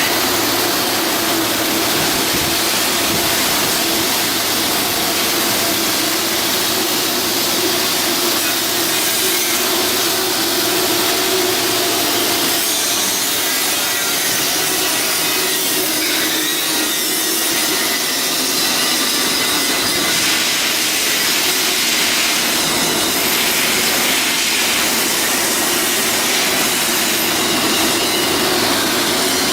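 Steady, loud, harsh noise of a power tool working steel, with a hum underneath, starting at a cut.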